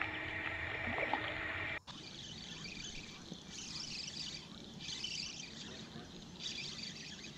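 A jon boat's trolling motor runs with a steady whine of several even tones and stops abruptly about two seconds in. After that comes quieter water lapping with a few short bursts of hiss.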